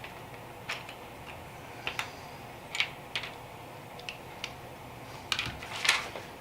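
Small plastic LEGO pieces clicking and clattering as they are handled, with irregular sharp clicks and a short cluster of louder rattles near the end.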